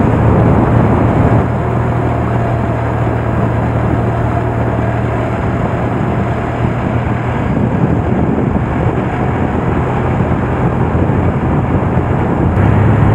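Motorcycle engine running steadily at cruising speed, a constant low drone, with wind rushing over the microphone.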